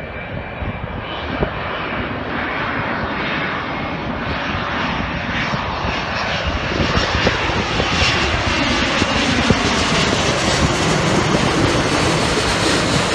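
Japan Airlines Boeing 777 on final approach with gear down, passing low overhead. The steady noise of its twin jet engines swells, and the hiss grows higher and brighter as it nears, loudest near the end.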